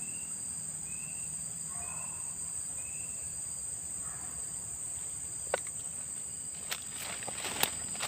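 Steady high-pitched insect trilling, with a few short high chirps about once a second in the first few seconds. A few sharp clicks come in the last few seconds.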